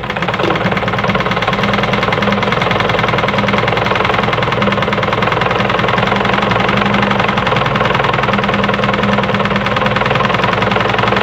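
Juki DIA Rotary 7 sewing machine running steadily at speed, its needle going up and down in a fast even rhythm as it sews the right side of a buttonhole in close zigzag stitches.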